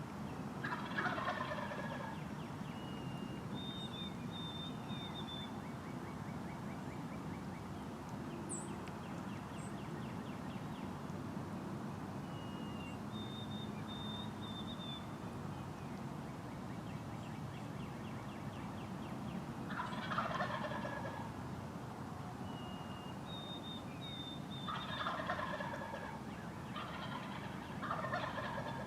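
Wild eastern turkey tom gobbling four times, each gobble a short rattling call of about a second, one near the start and three close together in the last ten seconds. Between the gobbles a songbird repeats a short high phrase three times over a steady low outdoor hum.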